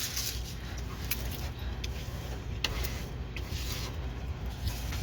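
Faint rubbing and rustling of a diamond painting kit's packaging and drill bags being handled, with a couple of light clicks.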